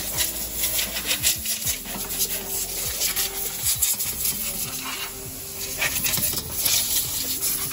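A quick, uneven series of rough rubbing strokes, like scrubbing or wiping during car cleaning.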